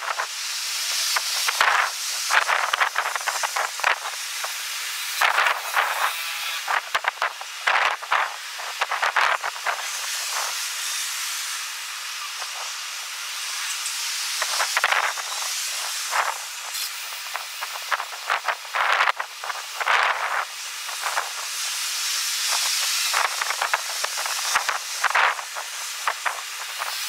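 Strong wind blowing in gusts: an even rushing noise with no low rumble, surging and dropping every second or two.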